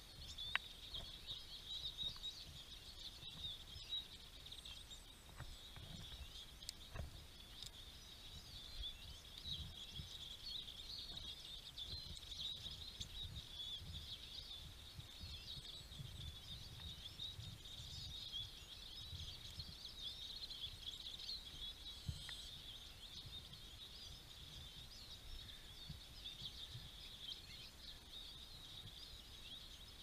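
Faint, continuous twittering of a flock of small songbirds: many overlapping short, high calls. Underneath there is a low rumble and a few soft clicks.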